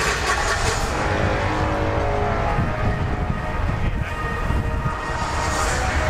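Strong wind buffeting the microphone, a low irregular rumble, with faint music underneath.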